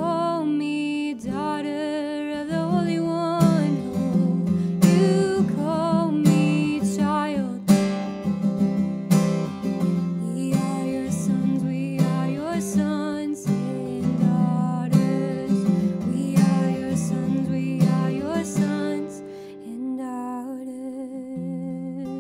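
A woman singing to her own strummed acoustic guitar. The singing stops near the end, leaving the guitar playing alone.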